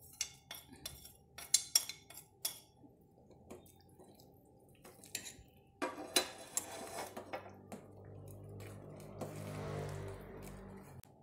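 Metal spoon clinking and scraping against a plate and the rim of a stainless steel pot as a crumbly ingredient is tipped in. From about six seconds in, the spoon stirs the liquid in the pot, with a dense run of clinks and scraping that gives way to a steadier swishing.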